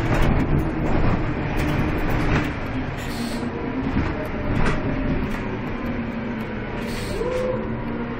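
Inside a Karosa B931 city bus on the move: its engine runs steadily under the cabin noise, with a few short knocks and a short rising tone near the end.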